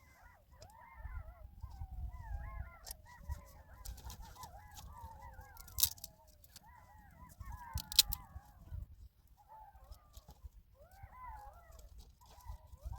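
A pack of wolves howling and yipping together, many voices overlapping in long falling howls and quick wavering calls. A few sharp knocks cut through, the loudest about eight seconds in.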